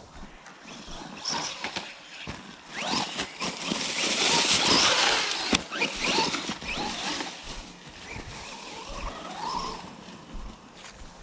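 Small electric RC car being driven hard, its motor whine rising and falling with the throttle over the rough scrabble of its tires, loudest about four to five seconds in.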